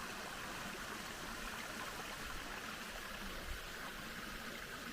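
Small mountain creek running, a steady rush of water.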